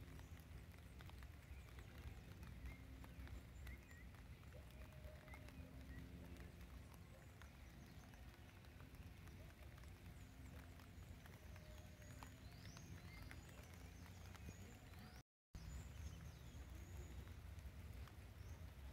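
Near silence: faint outdoor garden ambience, a low steady rumble with scattered faint bird chirps. The sound drops out completely for a moment about fifteen seconds in.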